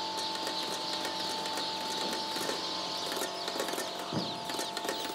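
A crowd of day-old chicks peeping together in a dense, high chorus, over a steady machine hum, with scattered light clicks from handling.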